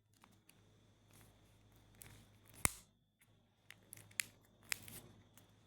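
Faint handling of smartphone parts: scattered light plastic clicks and taps as the phone is pressed together, one sharper click in the middle and a quick run of smaller clicks near the end.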